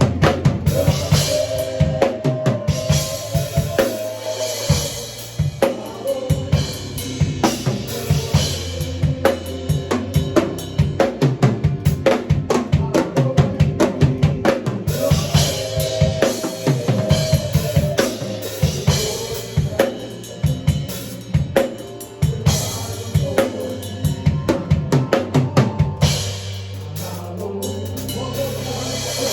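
A drum kit played in a fast, busy groove of kick drum, snare and rim hits, over held low and mid tones from other instruments. Near the end the drumming thins out for a moment while the low tone holds.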